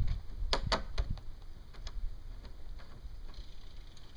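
Sharp clicks and knocks of boat straps and hull hardware being handled: a cluster of loud ones in the first second and a half, then fainter scattered ticks.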